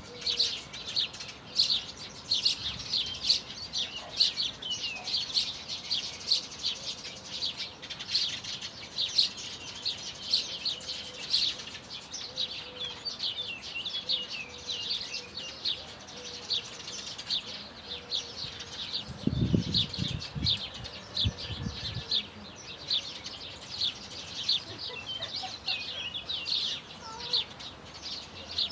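Small songbirds chirping steadily, many short high chirps a second, overlapping. About twenty seconds in comes a brief low rumble.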